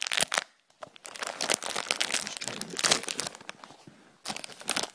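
Foil-lined plastic crisp packet (Baked Wotsits) crinkling and rustling close to the microphone as it is handled and pulled open. It comes in bursts, with a short pause about half a second in and a quieter spell just before the end.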